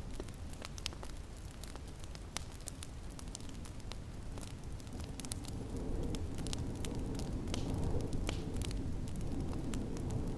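Wood fire crackling in a fireplace: irregular sharp pops and snaps over a steady low rumble of wind, which swells slightly about six seconds in.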